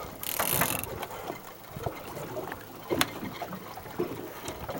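Big-game fishing reel being wound in against a heavy blue shark, its gears and pawl clicking irregularly. A short burst of hissing noise about a quarter second in.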